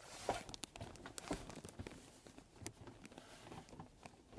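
Faint rummaging through a box: scattered soft rustles and small clicks and knocks of things being moved about.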